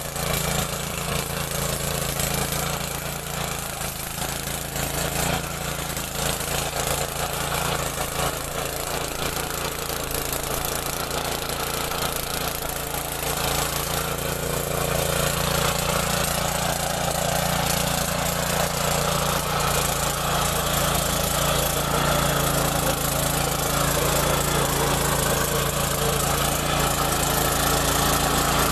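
Mini tractor's engine running steadily, a little louder in the second half.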